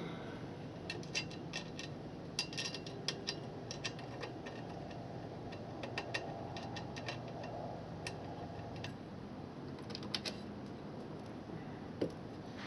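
Light metallic clicks in a few irregular bursts, from hand tools and bolts while an aluminum side step is being bolted to a truck.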